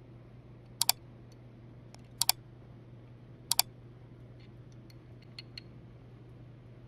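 Sharp metallic clicks of a wrench on a dividing head stop's clamping bolt as it is tightened: three quick double clicks about a second and a half apart, then a few faint ticks. A low steady hum runs underneath.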